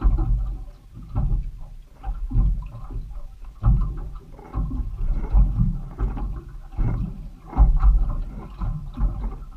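Wind buffeting the microphone in irregular gusts, with water slapping against the hull of a small boat at sea.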